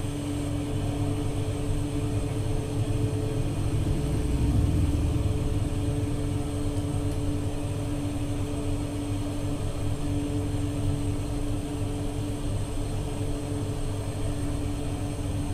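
Revolving-hearth bread oven running: a steady machine hum with a constant tone over a low rumble.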